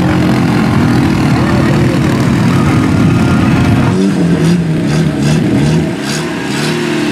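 Side-by-side UTV engine running hard as it churns through deep mud. About four seconds in, this gives way to an ATV engine revving, its pitch rising and falling repeatedly.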